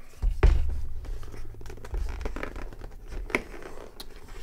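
A tight-fitting lid being worked off a rigid cardboard box: cardboard scraping and rubbing, with a heavy low bump about half a second in and a few sharp taps later on.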